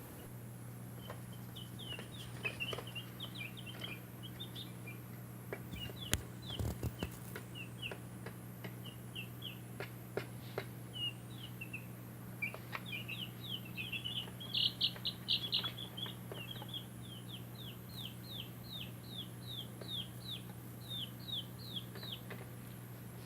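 Baby chicks peeping: a steady run of short, high peeps, each falling in pitch, coming thickest around the middle. A steady low hum sits underneath, and a few sharp knocks sound about six seconds in.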